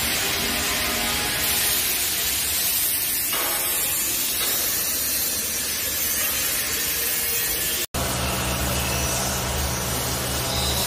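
Steady hissing machine noise. After a short break about eight seconds in, a vibratory stress relief exciter runs with a steady low hum as it shakes a welded steel frame.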